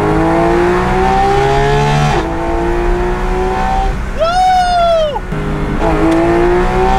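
Porsche 911 GT3 RS's naturally aspirated flat-six accelerating hard, its pitch climbing through the revs and dropping at an upshift about two seconds in, then climbing again. Around four seconds in, a short higher-pitched wail rises, holds and falls, and the engine then picks up again from lower revs.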